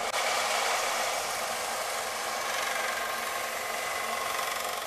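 Small 1-inch belt sander running steadily, its abrasive belt grinding the bevel into a steel knife blank cut from a saw blade: an even hiss over the motor's steady hum.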